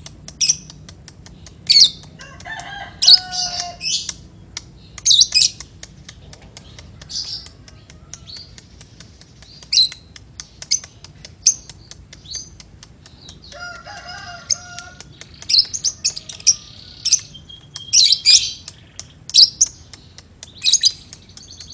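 Caged lovebird giving short, shrill chirps and chattering calls in irregular bursts. Twice a lower, drawn-out call sounds behind it.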